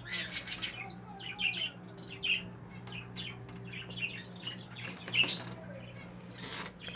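Young English budgerigars chattering and chirping: many short, rapid chirps and squawks from several birds.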